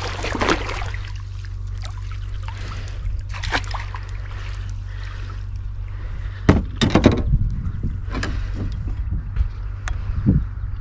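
A hooked fish thrashing and splashing at the water surface beside a kayak as it is brought into a landing net: sudden splashes at the start, once more about three seconds later, a flurry of them a little past halfway, and one near the end.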